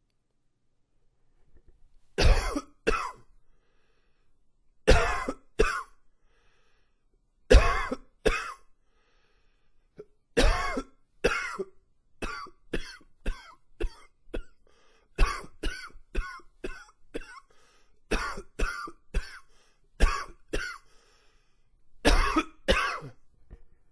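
A man coughing repeatedly: hard double coughs every few seconds at first, then a quicker run of about two coughs a second through the middle, ending with a few more paired coughs.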